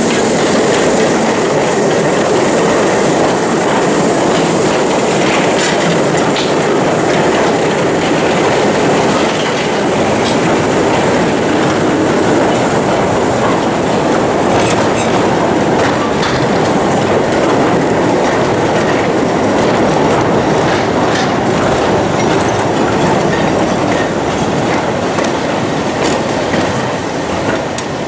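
A long rake of narrow-gauge slate wagons rolling past, their iron wheels rattling and clicking steadily over the rails. The sound eases off near the end as the last wagons go by.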